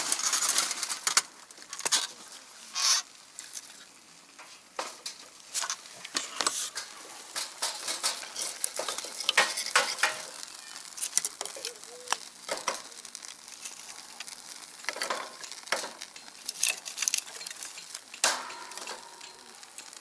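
Repeated short, sharp scraping strokes at an irregular pace, loudest at the start and about three seconds in: steel scraping fatwood while tinder is made and worked to light a campfire.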